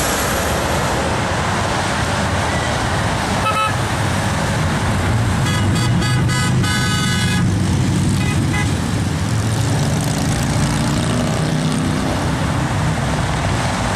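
Steady highway traffic passing below, with car horns honking in support of the protesters: a short toot about three and a half seconds in, a run of quick beeps and then a longer honk around six to seven seconds in, and another short beep a little later.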